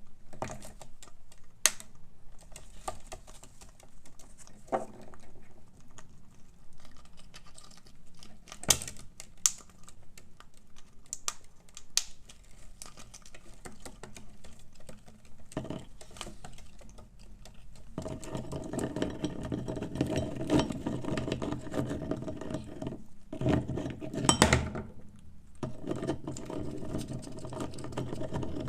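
Parrot beaks cracking and gnawing at walnut shells. First come scattered sharp clicks and cracks, then, from about two-thirds of the way in, a louder run of fast crunching and scraping with two short breaks.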